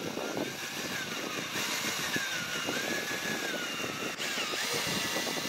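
Electric drill running under load, a twist bit boring through a hole in a stainless deck fitting into the wooden core of a boat's deck. The motor whine wavers up and down in pitch as the bit bites.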